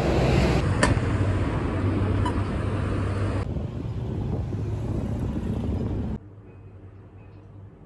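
Street traffic noise with a rushing wind-like haze over a low hum, and a sharp click about a second in. It cuts off abruptly about six seconds in to faint room tone.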